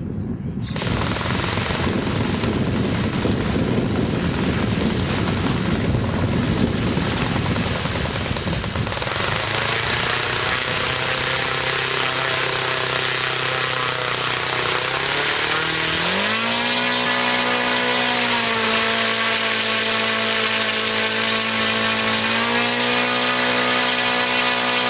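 O.S. FS-200S 2 cubic inch four-stroke glow engine running. It starts with an uneven clatter for several seconds, then settles into a steady low note. About two-thirds of the way through it is throttled up to a higher steady pitch, which eases slightly and rises again near the end.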